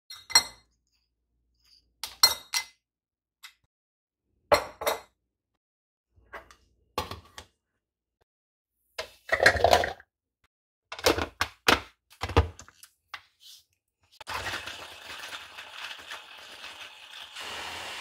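A series of short glassy clinks and knocks: a metal wire whisk striking a glass measuring jug, then utensils and containers being set down on the counter. Near the end, a Kenwood hand blender's chopper attachment runs steadily for about three and a half seconds, chopping tomatoes.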